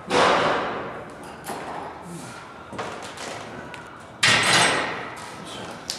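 A weightlifter's forceful exhalations under a loaded barbell during front squats: two loud, sudden breaths about four seconds apart, each fading within a second, with smaller breaths between.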